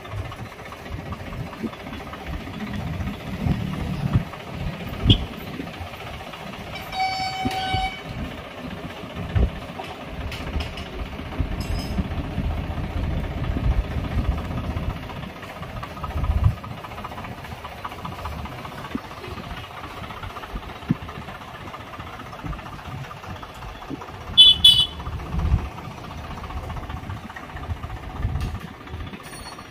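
Swaraj 855 FE tractor's three-cylinder diesel engine running while the tractor is driven in low gear. A horn sounds once for about a second around seven seconds in, and a short high beep comes near the end.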